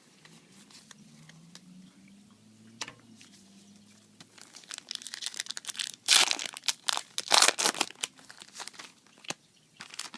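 Foil trading-card booster pack being torn open and crinkled, crackling in quick bursts, loudest in the middle, with a few softer rustles and clicks after.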